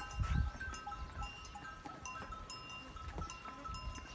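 Bells worn by a walking herd of zebu cattle, clinking and ringing irregularly, many short clear tones overlapping. A low rumble sits under them near the start.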